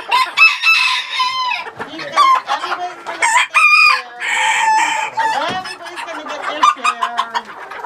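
A flock of chickens clucking and calling over one another, with roosters crowing in long held calls.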